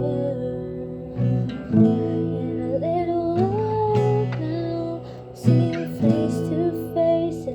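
Acoustic guitar strummed with a singing voice holding and sliding between long notes.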